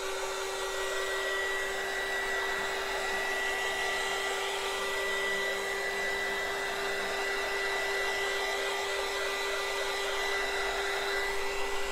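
Handheld heat gun running steadily, a fan whir with a steady hum, blowing hot air to dry a wet glued surface; it is switched off near the end.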